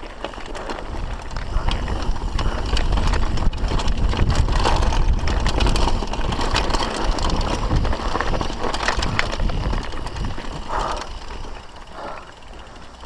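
Mountain bike riding fast down a trail: wind buffets the camera microphone with a heavy rumble, while the tyres and rattling bike parts make scattered clicks. It builds over the first few seconds and eases off near the end.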